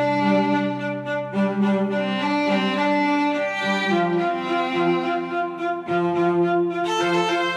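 Background music of bowed strings holding long, sustained notes that move from chord to chord.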